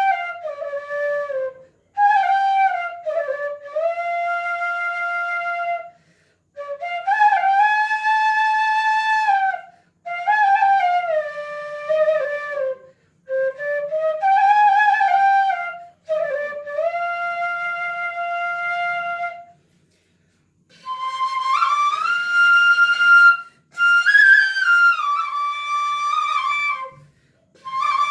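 Bansuri (Indian bamboo flute) playing a slow, unaccompanied folk tune in short phrases with brief breaths between them. Notes slide from one pitch to the next and some are held long. From about two-thirds of the way in, the phrases move up to a higher register.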